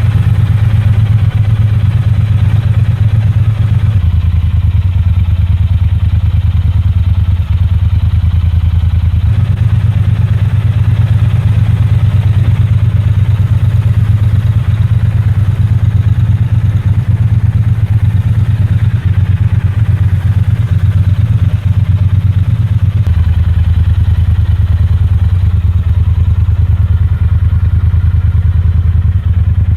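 Triumph Bonneville T120's 1200 cc parallel-twin engine running steadily through its exhaust, stock pipes and Vance & Hines peashooter pipes heard in turn. The note changes abruptly three times as one recording gives way to another.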